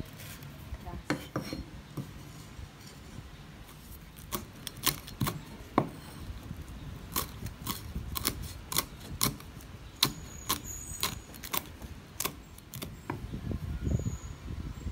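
Cleaver chopping kaffir lime leaves on a round wooden cutting board: an irregular run of sharp knocks of the blade striking the wood. Near the end there is a duller low bump.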